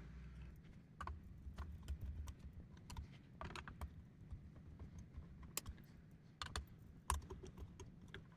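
Scattered light clicks and taps of small metal parts being handled, as blade screws and washers come off a ceiling fan.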